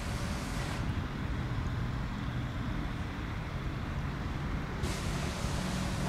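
Airbus A319 jet engines running with a steady low rumble; the higher hiss drops away about a second in and returns near the end.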